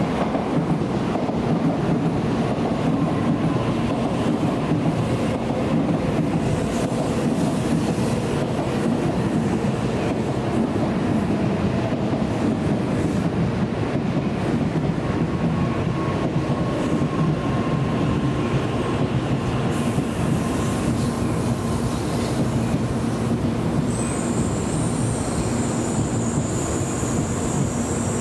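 Tokaido Shinkansen bullet train running through the station: a steady, dense rumble of wheels and running gear on the track. A thin high-pitched tone joins about four seconds before the end.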